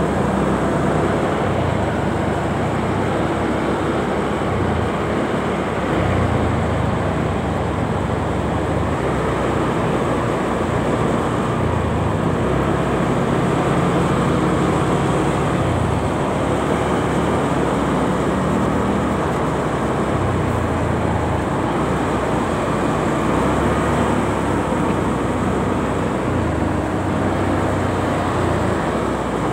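Riding a motorcycle through dense city traffic: a steady rush of wind and road noise, with a low engine hum that rises and falls every few seconds as the bike speeds up and slows.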